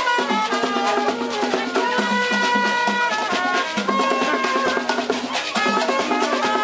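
Haitian rara band music: a steady, dense beat of drums and percussion under held, repeating wind-instrument notes.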